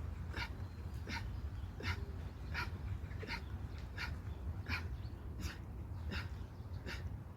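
A man panting hard and fast, one breath about every 0.7 seconds in a steady rhythm, from the exertion of doing push-ups.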